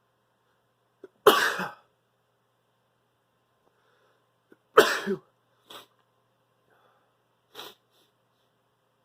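A man sneezing twice, about three and a half seconds apart, each sneeze sudden and loud with a brief catch of breath just before it. Two short, much quieter sniffs follow.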